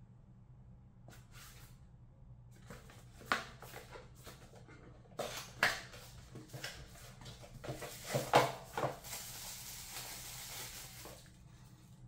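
Cardboard box handled and opened by hand: a series of scrapes and taps as the flaps are worked open, the loudest about two-thirds of the way through. Near the end comes a steady rustle of the plastic wrap as the mouse is slid out of it.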